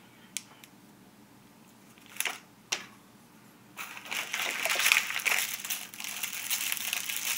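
Packaging being handled: a couple of sharp clicks, then from about four seconds in, steady crinkling and rustling as packets are handled and opened.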